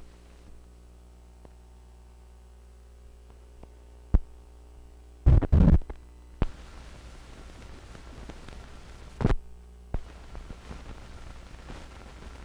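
Steady low electrical hum from an old film soundtrack running over blank leader, broken by sharp pops: one about four seconds in, a loud cluster of pops around five and a half seconds, and more a little past six and near nine and ten seconds. A light crackling hiss comes in after about six and a half seconds.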